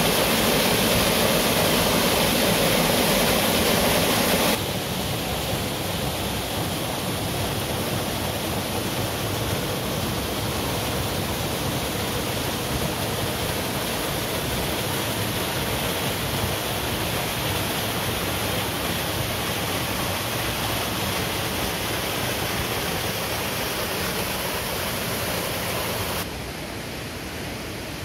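Nanayo Falls waterfall rushing: steady white-noise roar of falling water. The level drops abruptly about four and a half seconds in and again near the end.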